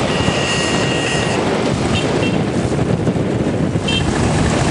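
Steady road and wind noise from riding in a moving vehicle through city traffic. A thin high tone is held for about a second near the start, and a few short high chirps follow later.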